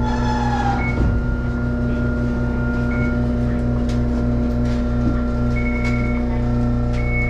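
Hakodate City tram standing at a stop, heard from inside the car: a steady electrical hum with a low rapid pulsing that stops about five seconds in. A few short high beeps sound now and then.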